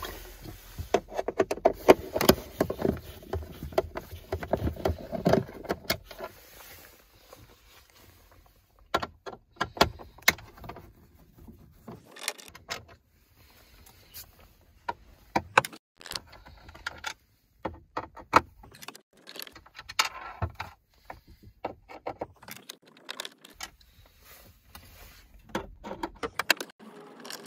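A screwdriver working screws out of a VW T5 Transporter's plastic glove box and dash trim, with scattered small clicks, scrapes and metallic rattles and short quiet gaps between them.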